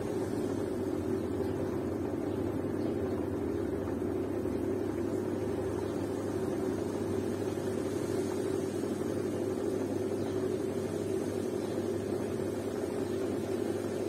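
Zanussi front-loading washing machine running with its drum turning through wet laundry: a steady mechanical hum that does not change.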